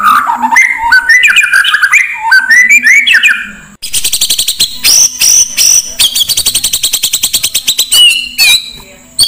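Recorded songbird song edited together as a bird-training lure track. First comes a string of varied whistled notes that rise and fall. About four seconds in, after an abrupt cut, a fast rapid-fire run of high clicking, chattering notes follows, with a few separate calls near the end.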